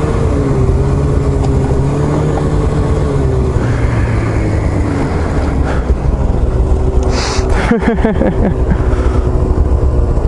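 Snowmobile engine running steadily under way on a trail, its pitch easing slightly after a few seconds. About seven seconds in comes a brief rush of hiss and a quick sweep in the engine note.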